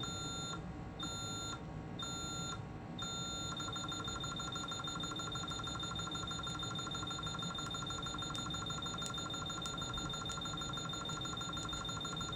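Honeywell Vista alarm keypad beeping during the exit delay after arming 'away'. It gives slow beeps about once a second, then switches to rapid beeping about three and a half seconds in, warning that the exit delay is about to run out before the system is fully armed.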